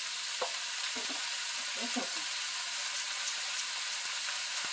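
Fried rice with diced vegetables and ham sizzling steadily in a hot pan, with a few light knocks of a plastic rice paddle in the first couple of seconds.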